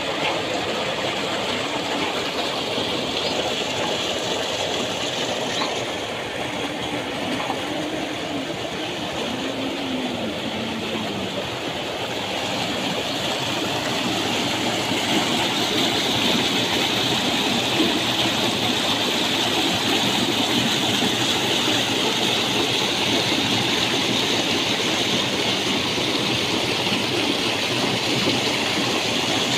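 Heavy stream of water gushing from an irrigation tubewell's outlet pipe into a concrete tank and rushing through the concrete field channel, a steady rushing noise that grows a little louder about halfway through.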